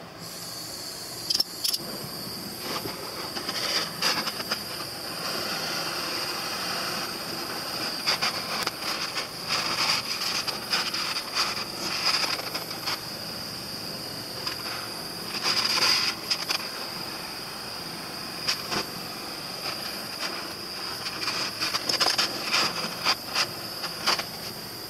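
Hand-held gas torch on a screw-on fuel cylinder burning steadily with a hissing flame, with irregular crackles and a few louder surges.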